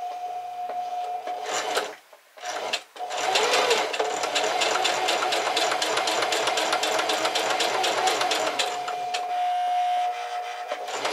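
Singer electric sewing machine stitching flannel fabric: the motor hums under a fast, even clatter of the needle. It runs briefly, stops for about a second, then starts again about three seconds in and sews steadily to the end.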